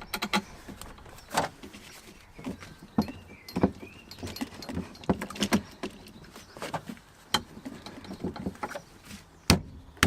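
Irregular metallic clicks and knocks of a classic Mini's steering column being wriggled onto the steering rack's splined pinion while the pinch bolt is worked through the clamp, with a brief squeak about three seconds in.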